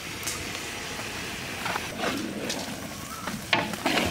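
Chopped beef lungs sizzling in a large iron karahi of hot oil and spice paste, a steady hiss with a few knocks and scrapes of the stirrer against the pan around the middle and near the end.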